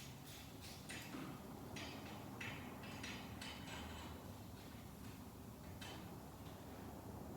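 Faint, irregular clicking of a hand socket ratchet on an extension, working a bolt loose.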